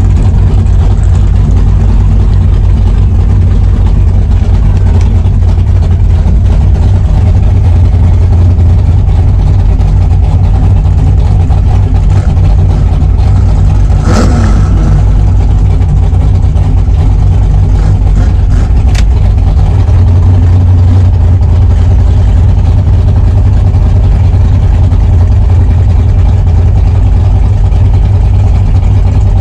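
A 1963 Chevrolet Impala drag car's engine idling loudly and steadily, heard from inside the cabin. There is one brief sharp sound about halfway through.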